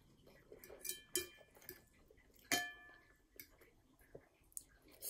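Metal fork clinking against a ceramic plate while noodles are twirled and scooped, with three sharp ringing clinks, the loudest about two and a half seconds in.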